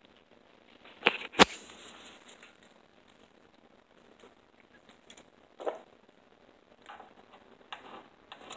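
Sharp clicks and knocks from hand work on an aluminum sliding-door track: two close together about a second in, the loudest, another near the middle, and lighter ticks near the end.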